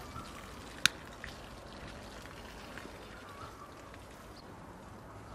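Water from a garden hose pouring and splashing onto loose soil, a steady wash of sound. One sharp click about a second in.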